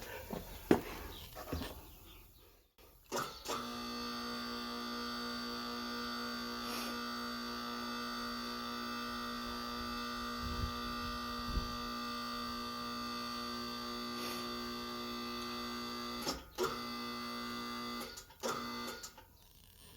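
Electric hydraulic pump motor of a Vevor TL5522 5000 lb car lift running with a steady hum as it raises the lift with a car on it. The hum starts about three seconds in after a few clicks, cuts out briefly twice near the end, and then stops.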